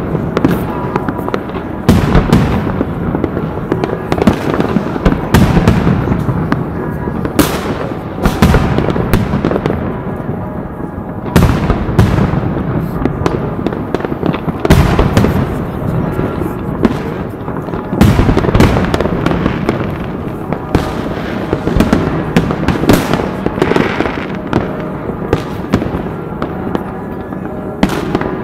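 New Year fireworks and firecrackers going off without a pause: a constant crackle with many sharp bangs, the loudest bursts coming every few seconds.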